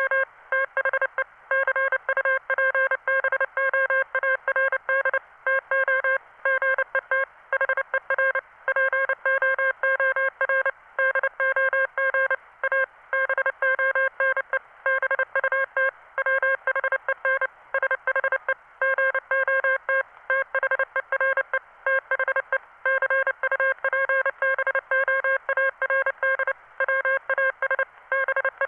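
Morse code from a text-to-Morse converter: a single buzzy tone keyed on and off in dots and dashes, with short gaps between elements and longer gaps between letters and words, at a steady sending speed.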